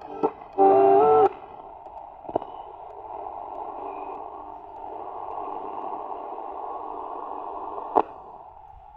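Philips Valiant Deluxe transistor radio being tuned through the band: a brief snatch of a station with a held tone about a second in, then a steady hiss of static between stations, broken by a sharp click near the end.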